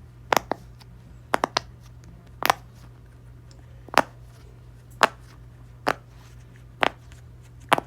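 Silicone Pop-It fidget toy bubbles being pressed and popping, sharp single pops roughly once a second, with a few quick doubles and triples near the start.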